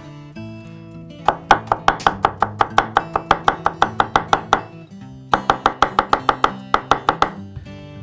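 Chef's knife rapidly chopping garlic cloves on a wooden cutting board: quick, even knocks of the blade on the board, about six a second, in two runs with a short pause between them about five seconds in.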